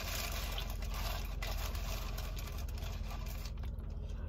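Car engine idling, a steady low hum heard inside the cabin, with soft chewing over it.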